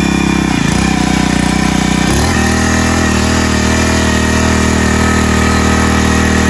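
Small petrol engine of a Kubota TMS200 mini cultivator running steadily. About two seconds in its note changes and deepens as the rotary tines start digging into the soil.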